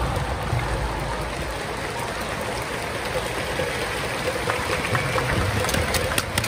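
Steady murmur of a large crowd in a baseball stadium, with a few sharp clicks near the end.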